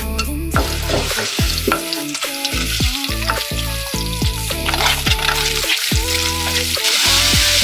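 Food frying and sizzling, growing loudest near the end, over background music with deep, downward-gliding bass notes.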